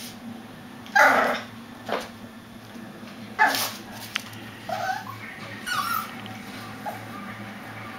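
Young puppy barking in short, high yaps, five or six in all, the loudest about a second in and again past the midpoint, the last ones fainter and whinier.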